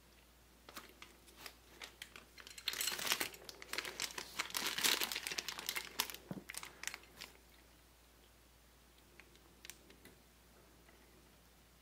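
Packaging crinkling and rustling as it is handled and pulled away, densest for about four seconds in the middle, with scattered light clicks and crackles before and after.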